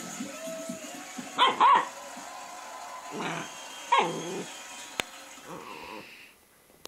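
A dog barking while it spins chasing its tail in play: two sharp barks about a second and a half in, then two more around three to four seconds in.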